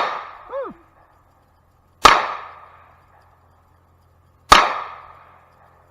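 Semi-automatic 9mm-class pistol fired single shots, a few seconds apart: one right at the start, then two more about 2 and 4.5 seconds in. Each shot rings out briefly with an echoing tail.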